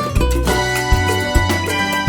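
Background music in a Latin style, with held melodic notes over a steady low beat about twice a second.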